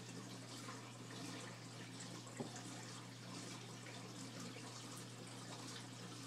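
Aquarium filter running: a steady trickle and splash of water with a constant low hum, and a single sharp click about two and a half seconds in.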